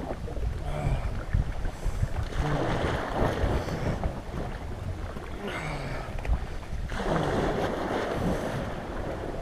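Small sea waves washing in over icy shore rocks, surging three times, with steady wind buffeting the microphone.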